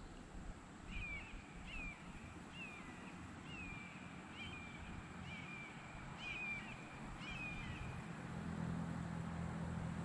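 A bird calling the same short, down-slurred note over and over, about once a second for several seconds, over a low rumble; a low hum comes in near the end.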